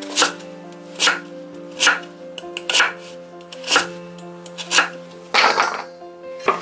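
Chef's knife chopping through a kohlrabi onto a wooden cutting board, about one sharp cut a second, six in all, then a longer scraping sound near the end. Soft background music underneath.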